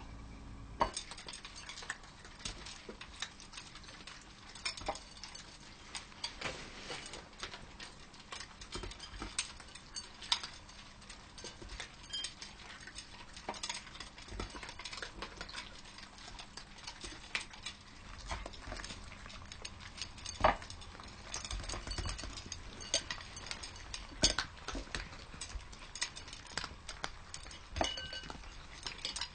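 A group of cats eating from metal bowls: many small irregular clicks, crunches and clinks of teeth and food against the steel, with one sharper clink about two-thirds of the way through.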